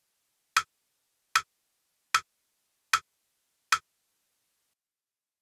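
Crotchet beat pulse: a metronome-style click ticking five times at an even tempo, about one every 0.8 seconds, counting in a music dictation extract.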